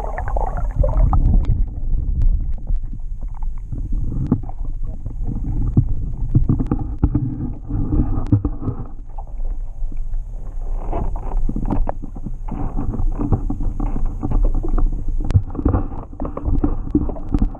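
Muffled water sloshing and gurgling against a boat hull, heard through an underwater camera's housing, with scattered small knocks and clicks.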